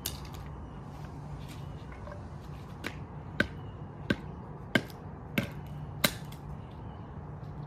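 A baseball bat striking a small RC car battery pack lying on pavement: five sharp hits in a steady rhythm, about two-thirds of a second apart, after a lighter tap.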